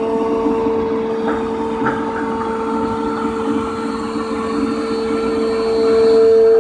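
Electrospindle of a Pade five-axis CNC router running at speed, a steady high whine over a rougher machine hum as the head moves to reposition. The whine swells louder near the end.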